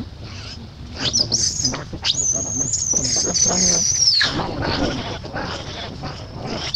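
A few short, high rising squeaks about a second in, then one long, high-pitched, slightly wavering animal call lasting about two seconds that cuts off sharply.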